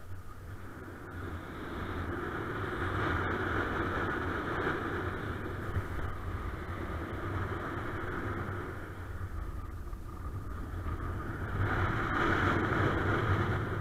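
Wind rushing over the camera microphone of a paraglider in flight in strong wind, swelling louder from about two seconds in, easing a little, then rising again near the end.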